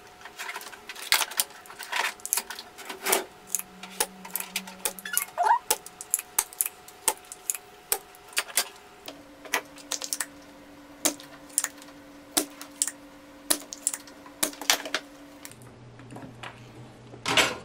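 Irregular sharp clicks and taps of a soldering iron and small tools working on a little circuit board while a slide switch is desoldered from it.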